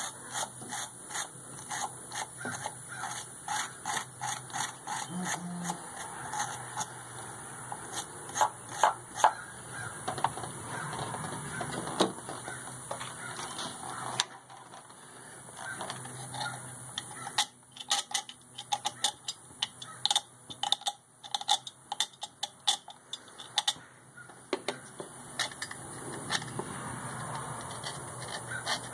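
Hand tools scraping, rubbing and clicking against the metal of a tractor engine's thermostat housing in irregular strokes, quieter for a few seconds midway, then a dense run of sharp clicks.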